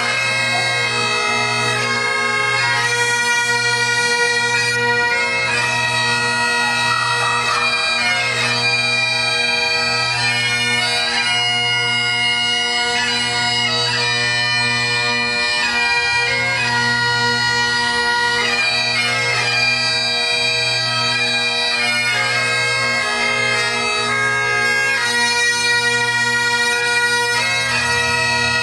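A group of Great Highland bagpipes playing a tune together over the steady drone of the pipes, continuing without a break.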